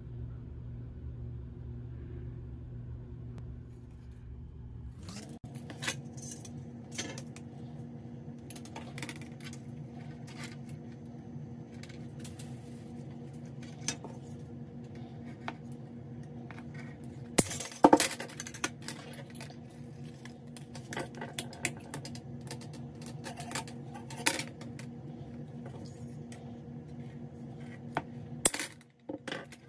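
Fine silver wire and small metal tools clinking and tapping on a steel bench block, a string of sharp light clicks over a steady low hum. A loud sharp snip near the end as the wire is cut in a bench cutter.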